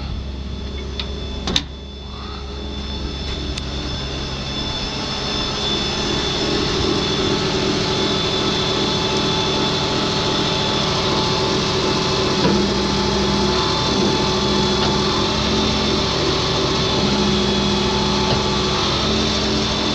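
Machinery with a motor running steadily, a droning hum with a higher steady whine, growing louder over the first several seconds. A sharp click about one and a half seconds in.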